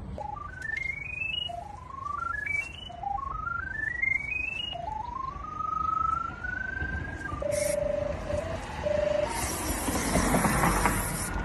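Pipe-locator receiver tracking a sewer camera's sonde: runs of short electronic beeps stepping up in pitch, repeated several times, then a held higher tone and a few lower beeps. A burst of hiss comes in near the end.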